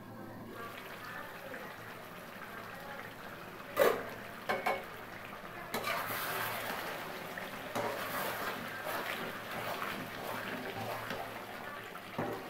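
An aluminium pot lid clanks as it is lifted off the karai about four seconds in, followed by two lighter knocks. Then chicken and bottle gourd curry simmers and sizzles while a metal spatula stirs and scrapes through it.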